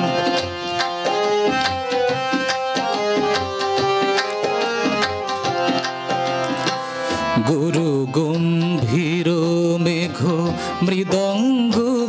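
Harmonium and tabla playing an instrumental passage of a Bengali song, the harmonium holding a melody of steady notes over regular tabla strokes. About seven seconds in, a man's voice comes back in, singing long wavering notes over them.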